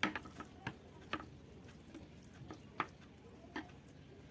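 Cooked instant noodles being stirred with sauce in a bowl: soft squishing with a few irregular sharp clicks of the utensil against the bowl.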